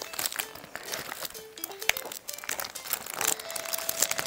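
Metallic foil wrapping of a chocolate Easter egg crinkling and crackling as it is cut with scissors, in a quick, irregular run of small crackles and snips.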